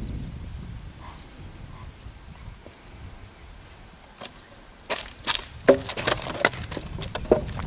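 A horse's hooves stepping into a trail-obstacle box of loose white fill, setting off a cluster of sharp crunching and crackling snaps from about five seconds in.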